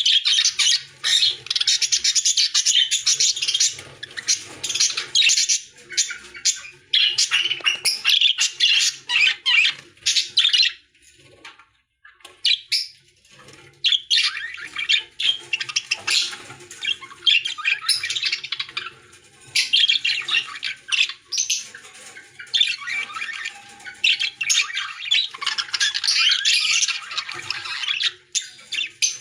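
A flock of lovebirds chattering and squawking in long, dense bouts of shrill calls, with a lull of about two seconds near the middle.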